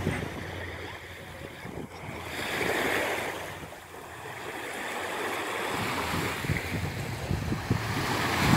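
Small waves washing onto a sandy beach as a soft, surging hiss that swells about three seconds in and again toward the end. Wind buffets the microphone, more strongly near the end.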